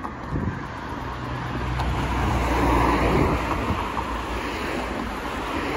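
A car passing on the road beside the pavement: its tyre and road noise swells to a peak about three seconds in, then fades, over a low rumble.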